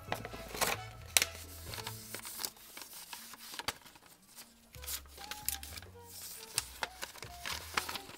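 Background music with a steady low bass line, over paper crinkling and crackling as a large sheet of patterned paper is folded and creased by hand; a few sharp crackles stand out, the loudest about a second in.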